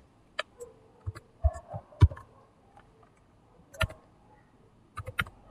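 Computer keyboard keystrokes: about eight sharp, irregularly spaced taps while code is typed, the loudest just after two seconds in and near four seconds.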